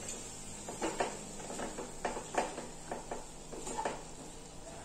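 A wooden spatula stirring vegetables and grated coconut in a non-stick kadai, making a string of short, irregular scrapes and taps against the pan.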